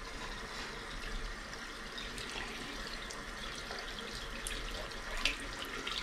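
A bathroom faucet runs a thin, steady stream of water into the sink, with a few faint ticks mixed in.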